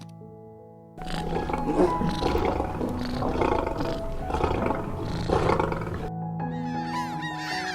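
A large wild animal roaring harshly in three swells from about a second in until about six seconds, over soft background music. Near the end, a flurry of high, rapid chirping calls starts.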